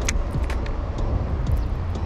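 Steady low rumble of traffic on the elevated road bridge overhead, with a few sharp light clicks, the loudest right at the start.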